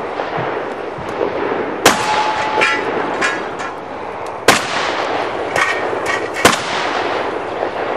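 Three shotgun shots loaded with 00 buckshot, about two to two and a half seconds apart, each a sharp, loud crack, with fainter clicks and brief metallic ringing between them.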